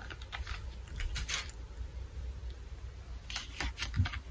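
Colored pencils clicking and rattling in a fabric pencil case as one is drawn out, with paper rustling, then a soft thump about four seconds in as the case is set down on the table.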